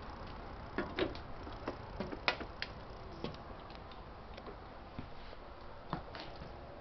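Scattered light knocks and clicks of footsteps and handling as someone steps up into a travel trailer and walks across its floor, over a steady low background hiss.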